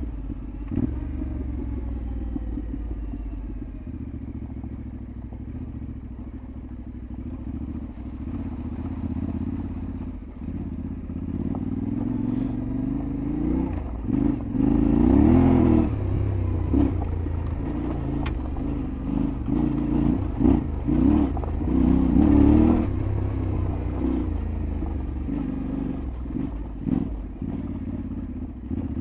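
Yamaha Ténéré 700 World Raid's parallel-twin engine running under way off-road, revving up about halfway through and again a few seconds later, with some clattering over rough ground.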